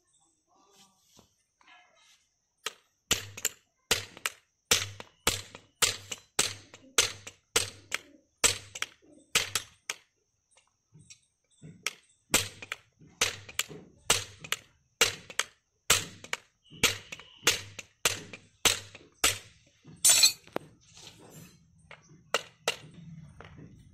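Hammer blows driving nails into a metal shoe on a water buffalo's hoof: a long run of sharp, ringing strikes at about two a second, with a short pause partway through and one especially loud strike near the end.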